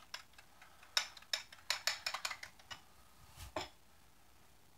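A whisk clinking against a bowl as egg wash is beaten: a run of quick, irregular clinks lasting about two seconds, then one louder knock.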